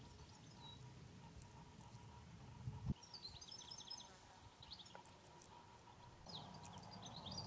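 Faint outdoor ambience: small birds chirping in short, high twittering runs, several times, over a low rumble. A single soft knock sounds about three seconds in.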